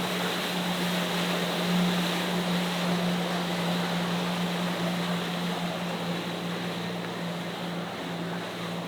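A motorboat engine running with a steady low hum over a wash of water and wind noise, slowly fading.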